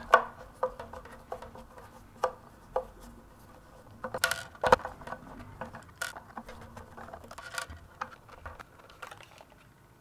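Scattered small clicks and taps as a screwdriver backs screws out of the plastic gearbox housing of a robot vacuum's main-brush unit and the tool, screws and plastic parts are set down on a wooden tabletop.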